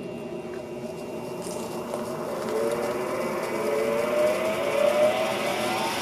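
Electric bench grinder switched on and spinning up to speed, a whine rising steadily in pitch and growing louder.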